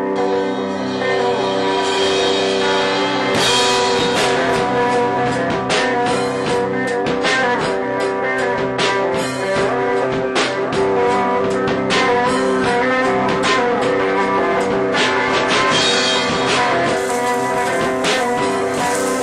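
Background music: guitar-led blues-rock with sustained guitar notes. A drum beat joins a few seconds in.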